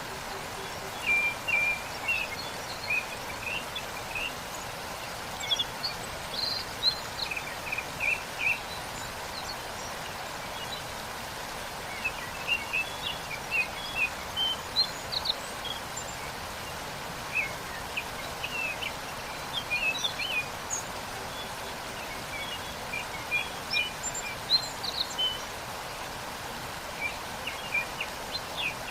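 Steady rush of a waterfall, with small birds chirping in short clusters every few seconds over it.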